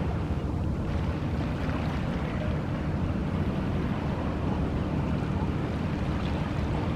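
Steady low rumble of wind and sea, with no distinct event standing out.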